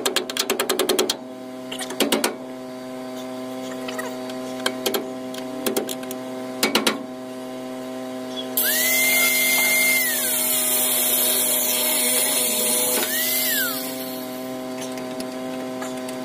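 Hammer knocks on the truck's steel frame and bolts, a quick run of strikes and then single blows every second or so, followed by an angle grinder spinning up and cutting into metal for about five seconds, with a second short burst near the end. A steady hum runs underneath.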